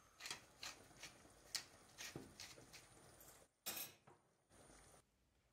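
A few faint clicks and light taps of cutlery against a frying pan, with one slightly louder clatter near the end.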